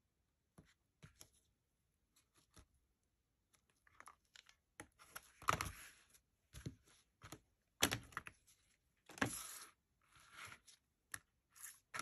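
Faint, irregular rustles and scrapes of a stiff vinyl-mesh panel with bound edges being slid, squared up and pressed flat by hand on a cutting mat. A few longer scrapes come between about five and eleven seconds in.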